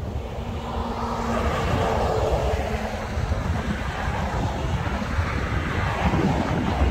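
Wind buffeting the microphone, with a steady noisy rush that picks up about a second in.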